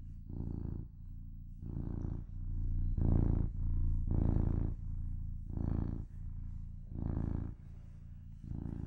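Domestic cat purring steadily, swelling and fading with each breath about every one and a half seconds: a relaxed, contented purr while kneading.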